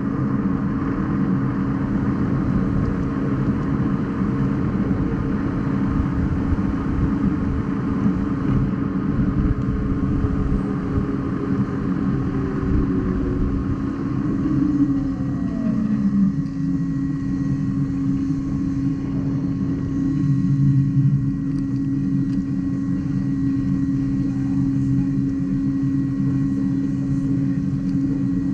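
Begode EX.N electric unicycle's hub motor whining steadily while cruising, over a dense road and wind rumble. About halfway through, a tone slides down in pitch.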